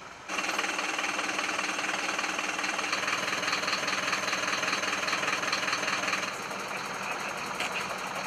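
Small engine of a portable hydraulic rescue-tool power unit running steadily at speed, with a fast even pulsing. It starts suddenly just after the beginning and drops a little in level about six seconds in.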